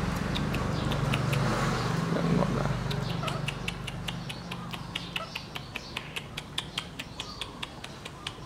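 Baby macaque sucking on a pacifier nipple: quick wet clicks, about three a second, growing clearer after the first few seconds. A low rumble sits under the first few seconds and fades out.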